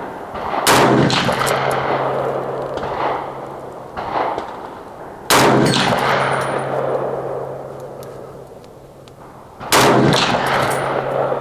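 Three single shots from an AK-47 rifle in 7.62x39, fired slowly about four and a half seconds apart, each with a sharp crack and a long echo dying away. A low steady hum follows each shot.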